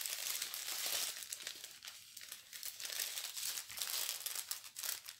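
Plastic packaging of a diamond painting kit crinkling and rustling as it is handled, with many small crackles.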